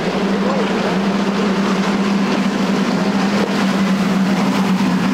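Outboard motors of a large center-console powerboat running at speed: a loud, steady engine drone over the rushing hiss of its spray and wake.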